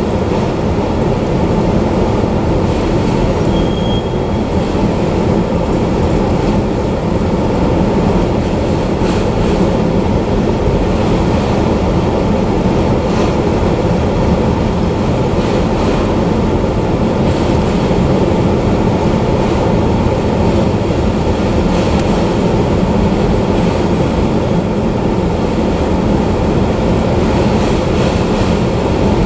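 Autorack freight cars rolling past: a steady, loud rumble of steel wheels on rail with faint clicks, and a brief high squeal about four seconds in.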